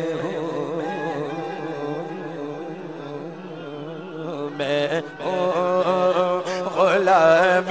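A male voice singing a naat in long, wavering, drawn-out notes over a steady low drone. The singing is softer in the first half and grows stronger about five seconds in.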